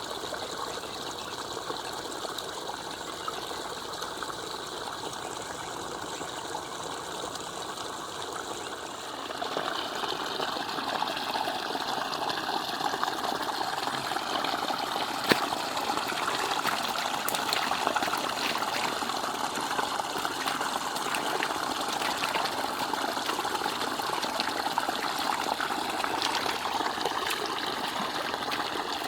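Water running steadily, a continuous rushing that grows louder about nine seconds in. A single sharp click sounds about halfway through.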